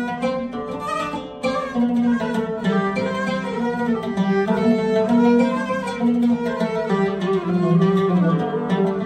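An oud and a violin playing an Arabic melody together: sustained bowed violin lines over the oud's plucked notes.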